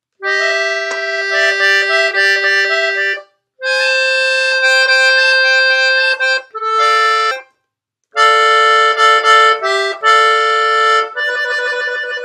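Piano accordion playing a norteño melody on its treble keys, in three short phrases separated by brief silences, with quick runs of notes over held tones.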